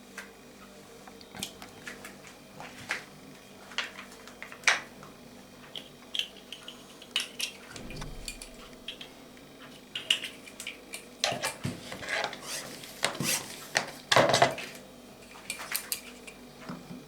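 Irregular clinks, clicks and knocks of lure moulds and tools being handled at a workbench, growing busier and louder about eleven seconds in.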